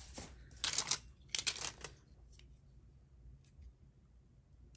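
Plastic Beyblade tops and parts being handled: a few short rustles and clicks in the first two seconds, then only faint, scattered clicks.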